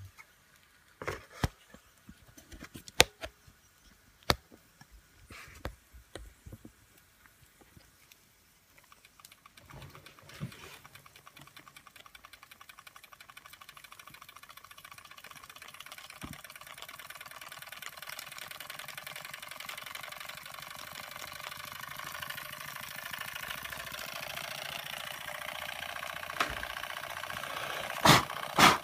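Doll dual-boiler toy steam engine starting up: a few clicks and knocks, then about ten seconds in its small horizontal engine begins running with a fast, even mechanical patter that grows steadily louder. Two sharp knocks near the end.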